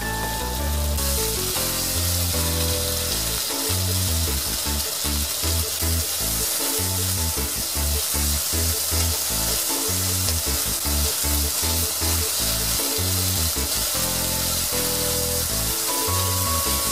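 Thin-sliced pork sizzling in hot oil in a non-stick frying pan as it is stirred with long cooking chopsticks, under background music with a steady beat.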